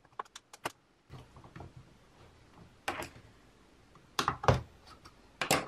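Small screwdriver clicking and knocking on screws and the metal front plate of a planar loudspeaker panel as the screws are undone: a run of light clicks in the first second, then a few sharper knocks, the loudest about four and a half seconds in.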